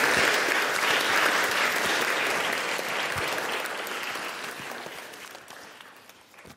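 Audience applauding, gradually fading out.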